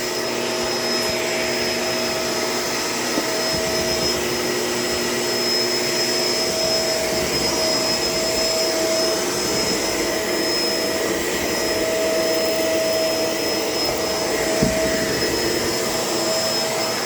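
Shark LA702 vacuum cleaner running steadily while vacuuming, its motor whine holding an even pitch, with one small knock near the end.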